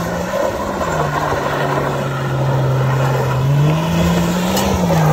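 Jeep Cherokee XJ's engine revving as it spins donuts on loose dirt, its pitch rising and falling twice, over the rasp of tyres churning the dirt.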